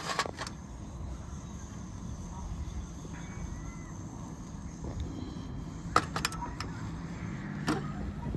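Trangia alcohol stove burning under a stainless steel pot of water nearing the boil, a low steady rushing mixed with wind on the microphone. A few sharp clicks about six seconds in and again shortly before the end.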